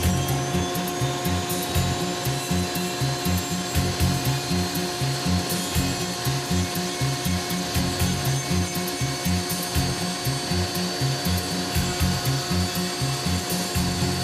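A Foredom flex-shaft rotary tool spins a carbide burr into white cedar. It makes a steady motor whine, with the rasp and fine chatter of the bit cutting wood.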